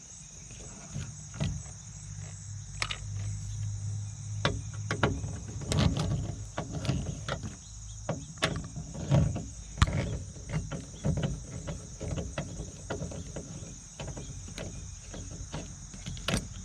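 Irregular clicks and knocks of hands and tools working on a bracket and plastic parts inside a car's rear door, with crickets chirping steadily in the background.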